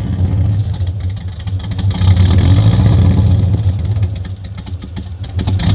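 Holden VT Commodore's LS1 V8 running through its twin exhaust at its first start-up. The revs rise about two seconds in, drop back, then pick up again near the end.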